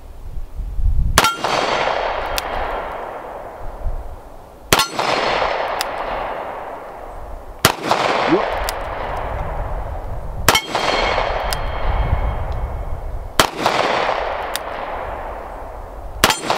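Six shots from a Taurus Defender 856 .38 Special revolver, fired slowly about three seconds apart. Each report rolls away over a couple of seconds, and a metallic clang follows as the bullets strike steel plate targets.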